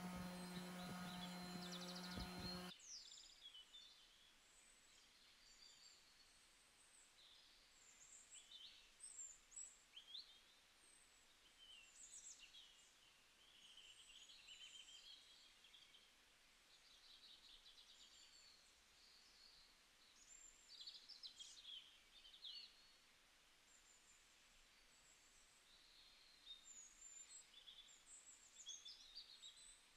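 Songbirds chirping and singing faintly, with scattered calls throughout. A steady buzzing hum at the start cuts off suddenly about three seconds in.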